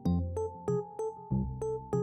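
Light background music: a keyboard tune with notes struck about three times a second over held chords.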